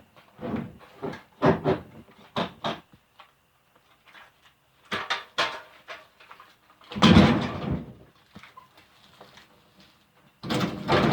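A refrigerator being wrestled down off a stack of appliances: irregular knocks, bumps and scrapes of the cabinet being handled, with one heavy thud about seven seconds in as it comes down.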